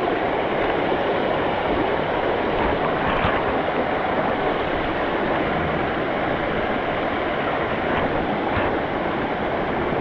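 Steady rushing of a waterfall pouring into a rock pool, with a few faint knocks.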